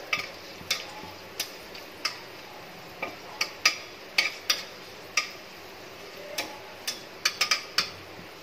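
Whole spices frying in hot oil in a kadai, stirred with a metal spatula, give irregular sharp clicks and pops over a low steady background.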